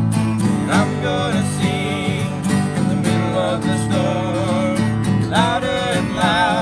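Acoustic guitar strumming steady chords in a live worship song, with short sung phrases about a second in and again near the end.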